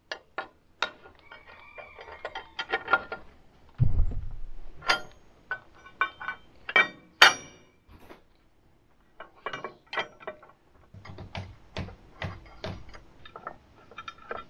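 Heavy steel mounting bracket and its bolts clinking and knocking against the steel loader arm of a tractor while being test-fitted by hand: a run of irregular sharp metal clicks and clinks, some briefly ringing, with a dull thump about four seconds in.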